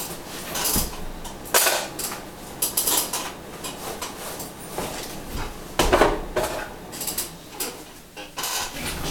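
Irregular knocks, clinks and rustles as a porcelain bowl and a broken hacksaw blade are handled, the loudest about a second and a half in and about six seconds in.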